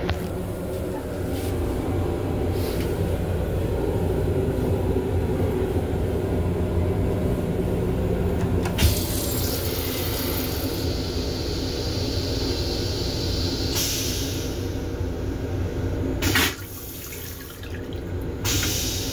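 M7 railcar toilet flushing: a sharp click about nine seconds in, then a rush of water that builds into a loud whoosh and cuts off suddenly a few seconds later. The steady low rumble of the moving train runs underneath.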